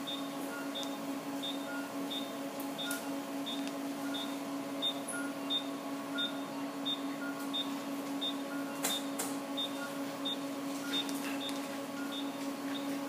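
Electrophysiology lab equipment humming steadily. Two trains of short electronic monitor beeps run through it: a high one about two to three times a second and a lower one about every 0.7 seconds. A few faint clicks come near the end.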